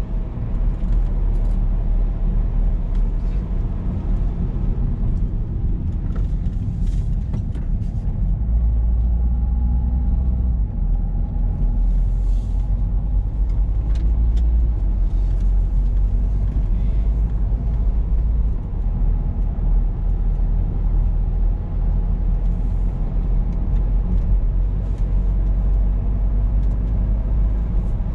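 A car driving along a road: a steady low rumble of engine and tyre noise, with scattered faint clicks.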